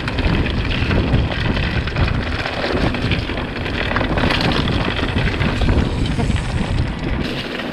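Mountain bike rolling fast over loose gravel and rocky dirt: tyres crunching and the bike rattling over stones, under heavy wind rushing over the microphone.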